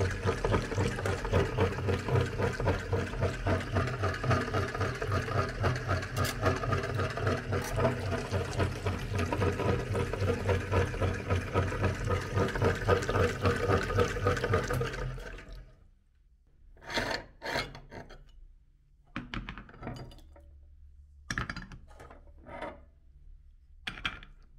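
Meat grinder running steadily with a fast, even pulse and a low hum, pushing jelly out through its plate. It stops abruptly about fifteen seconds in, and a handful of short wet squishes follow as fingers press into the minced jelly.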